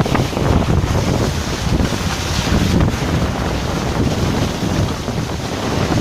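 Wind buffeting the microphone over the low rumble of a Lada Niva on the move.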